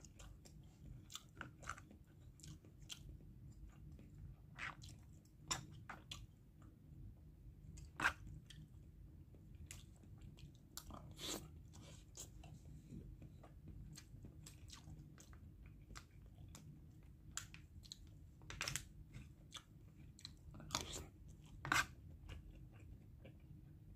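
A person chewing food, with scattered irregular clicks and scrapes of a plastic fork and knife against a plastic takeout tray. A faint low hum runs underneath.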